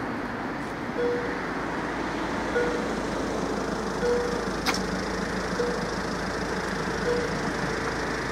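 Level-crossing warning bell sounding a single short ding about every second and a half over a steady background of road noise, with one sharp click about halfway through.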